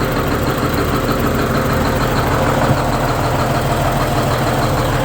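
GM New Look bus's two-stroke diesel engine idling steadily, its blower running.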